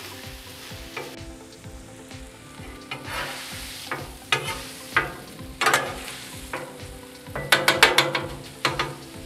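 Ground pork sizzling on a Blackstone steel flat-top griddle while a metal spatula chops and scrapes through it. The blade clacks sharply on the plate, scattered at first and in a quick flurry near the end.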